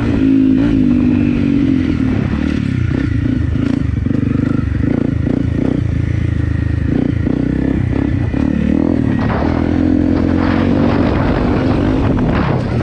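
Single-cylinder Honda motorcycle engine running while riding, its revs rising and falling with the throttle, with repeated knocks and rattles from riding over rough ground for much of the time.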